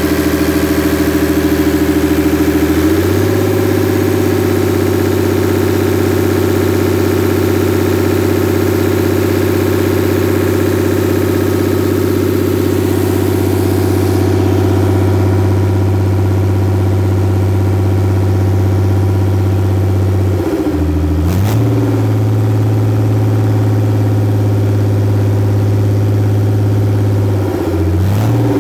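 Perkins 6.372 six-cylinder diesel engine running on a test stand. Its speed steps up about three seconds in and holds steady, then the revs dip and pick up again briefly about two-thirds of the way through and once more near the end.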